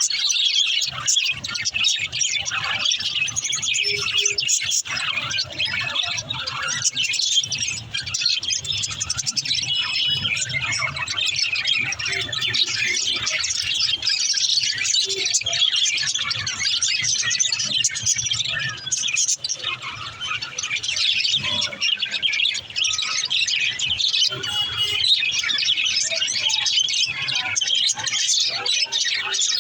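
A pair of budgerigars chirping and warbling in a continuous, dense chatter of quick high-pitched chirps.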